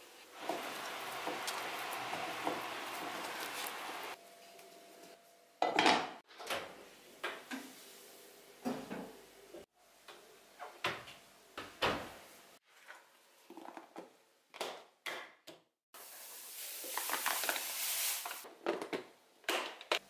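Hands working soft dough in a wooden bowl, a steady rustling scrape for the first few seconds. Then a run of separate knocks and clinks of kitchenware, and another stretch of rubbing noise near the end.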